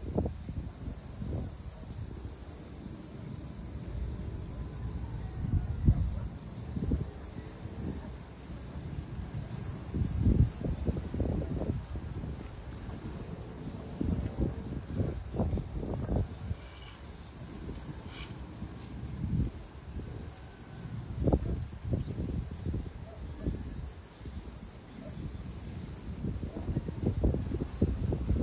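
A steady, high-pitched chorus of insects trilling without a break, with wind gusting against the microphone in irregular low rumbles.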